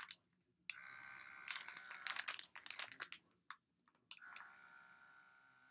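Small battery-powered handheld vacuum sealer pump whirring with a faint whine, pressed to the valve of a clothes-filled vacuum bag, with the plastic bag crinkling. A click comes at the start and again about four seconds in, after which the whine slowly fades. The pump is drawing the bag down only slowly, if at all.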